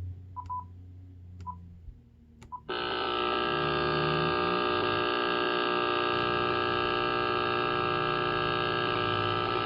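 Power line noise coming through a ham radio receiver's speaker: after a few short beeps, a loud, steady electrical buzz cuts in about three seconds in and holds unchanged, interference that has just come back on the power line.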